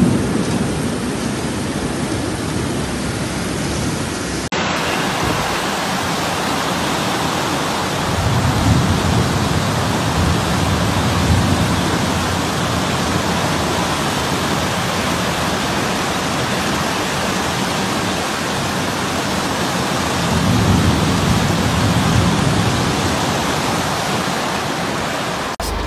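Heavy tropical downpour: a dense, steady hiss of rain, with a low rumble that swells up twice, about eight and about twenty seconds in. The sound changes abruptly about four and a half seconds in, where one recording gives way to another.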